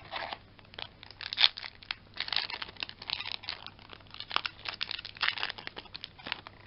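Foil wrapper of a Yu-Gi-Oh! trading-card booster pack being torn open and crinkled by hand, in irregular bursts of crinkling and tearing with short pauses between them.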